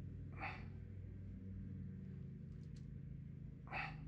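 Two short breaths out, one about half a second in and one near the end, from a person working close by, over a faint steady low hum.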